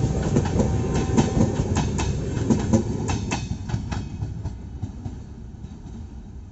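Clickety-clack of LHB passenger coaches passing at speed, with a steady rumble and sharp wheel clicks over the rails. About four seconds in, the last coach goes by and the sound fades as the train draws away.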